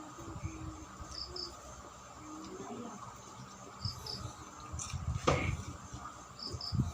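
A cricket chirping in short, high double chirps about every two and a half seconds, over close-up mouth and eating noises, with one sharp click a little past five seconds in.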